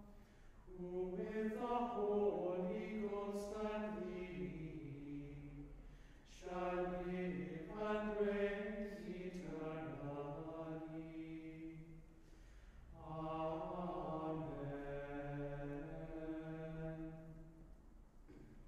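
Small group of men chanting the Compline office together, three long sung phrases with short breaths between.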